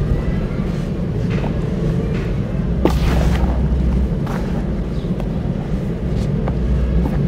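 Hands crushing dry, dusty sand lumps and letting the sand shower into a plastic basin with a little water. The crumbling comes in several short gritty bursts, the strongest about three seconds in, over a steady low rumble.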